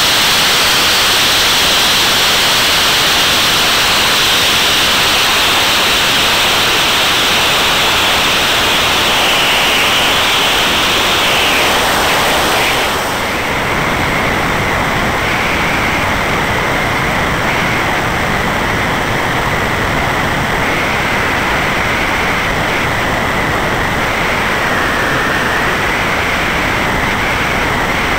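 Steady rushing wind noise over the tail-mounted camera of a Van's RV-8 in flight, with the aircraft's engine and propeller under it. About halfway through, at a cut, the noise dips slightly and a steady high whine comes in under it.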